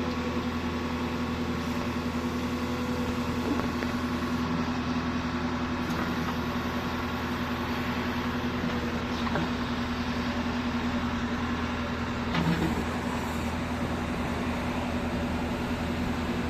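Kubota RX-301 mini excavator's diesel engine running at a steady speed, with a few faint knocks and clanks from the machine, the clearest near the end.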